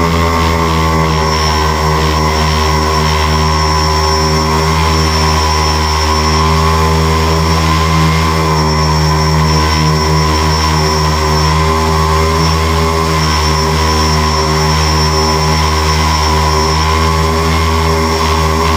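Tricopter's electric motors and propellers running steadily in flight: a constant hum of several tones, with a faint steady high whine above it.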